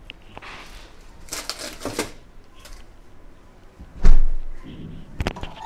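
Kitchen handling noises: a stretch of rustling and scraping, then a loud thump about four seconds in and a sharp knock about a second later, as of a cupboard or fridge door or containers being set down.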